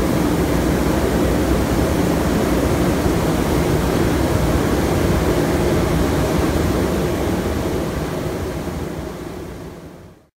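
Centrifugal pipe-organ blowers, each driven by a large electric motor, running at full speed: a steady rush of air with a low hum. The sound fades out over the last two seconds.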